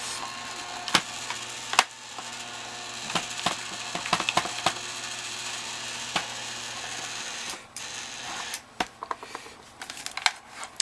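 The crushing rig's motor runs with a steady hum as its bar is backed out of a crushed adding machine, and sharp clicks and cracks come from the broken machine. The motor stops about seven and a half seconds in, and a few scattered clicks and rattles follow.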